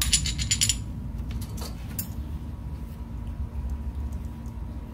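A quick run of about six light metallic clinks in the first second, then a few scattered clicks: steel axle parts knocking together as they are handled. A steady low rumble runs underneath.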